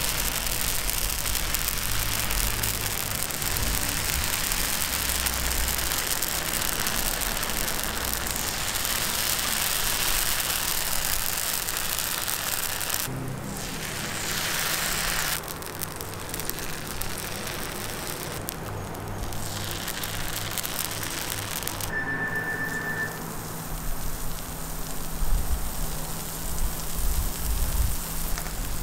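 Crepe batter sizzling on a hot round crepe griddle, a steady hiss that dips abruptly twice.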